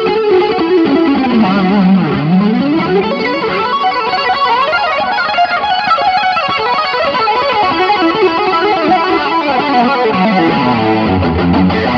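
Electric guitar played through an M-VAVE Tank-G multi-effects pedal on a distorted lead preset: fast melodic runs, one sweeping down and back up in pitch about two seconds in, with two-handed tapping on the fretboard midway.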